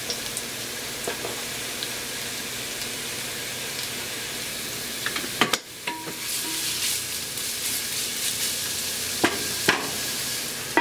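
Diced onion sizzling in hot olive oil in an enamelled cast-iron Dutch oven while a wooden spoon stirs it. The sizzle is steady, with a brief dip about halfway through, and there are two sharp knocks near the end.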